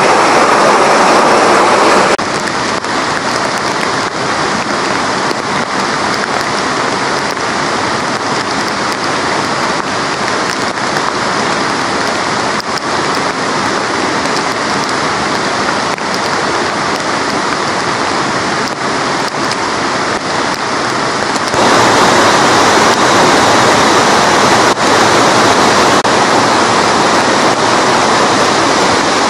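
Mountain river in spate after heavy rain, its water rushing steadily, with rain falling. About two seconds in the sound drops abruptly to a quieter, thinner rush, and near twenty-one seconds it jumps back to the louder, fuller rush.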